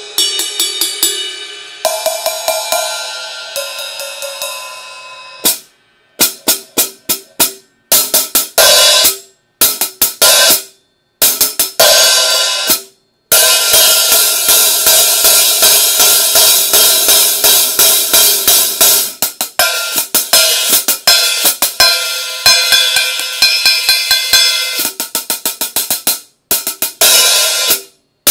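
Paiste 2002 Sound Edge 14-inch hi-hats and 2002 22-inch ride cymbal played together with sticks. The opening strokes ring out for a few seconds, then come quick, high-pitched stick patterns in short phrases broken by brief pauses, running steadily for long stretches.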